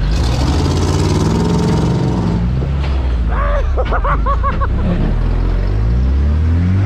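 Off-road truck engine running loud and steady, then revving up near the end while the trucks work a tow recovery.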